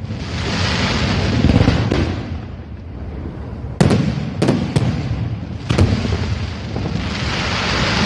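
Fireworks going off: a cluster of four sharp bangs around the middle, with a dense crackling hiss from the bursting shells between them that grows thicker near the end.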